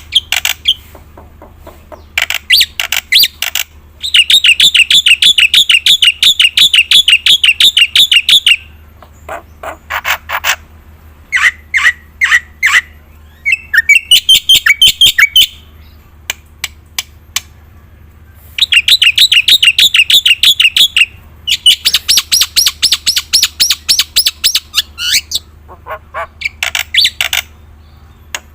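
Black-winged starling (jalak putih) singing hard: long, fast runs of rapidly repeated notes, harsh clicking calls and a few short whistled notes, in phrases broken by short pauses.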